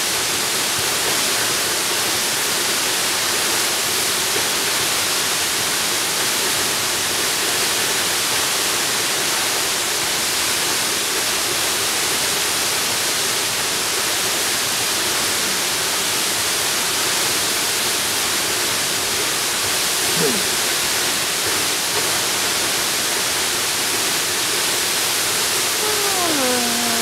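Tall waterfall plunging down a cliff: a steady, even rush of falling water. A short falling call sounds near the end.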